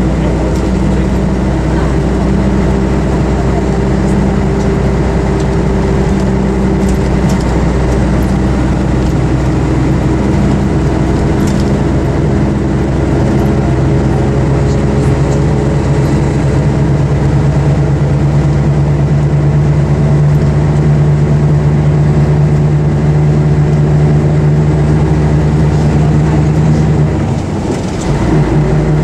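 Diesel engine of a Scania-chassis Ikarus EAG 395 bus running steadily under way, heard from inside the bus. The engine note dips briefly near the end, then carries on.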